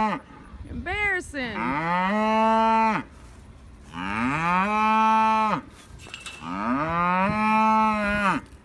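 A pony calling while it rolls on its back: a short call, then three long drawn-out calls, each sliding up into a held tone and dropping away at the end.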